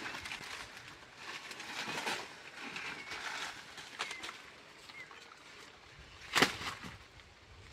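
Rustling and handling noises, with one sharp knock about six and a half seconds in, and a few short bird chirps.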